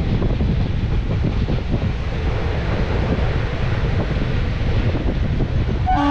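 Wind buffeting the microphone over the rumble of a moving passenger train, heard from an open coach doorway. Near the end a train horn starts sounding one steady note.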